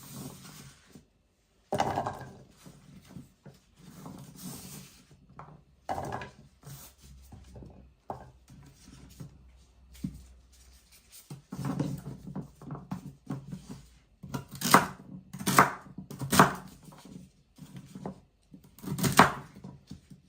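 A kitchen knife chopping fresh celery on a cutting board: uneven crisp cuts and knocks, quieter and scattered at first, then a string of louder, sharper strokes in the last third.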